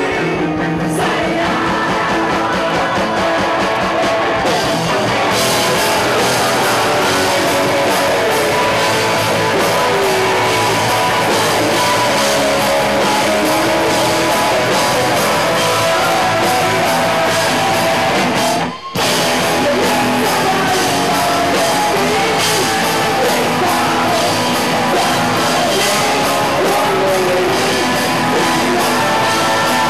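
Rock band playing live at full volume: electric bass, guitars and drums under a male lead singer. The cymbals fill in about five seconds in, and the sound cuts out for an instant about two-thirds of the way through.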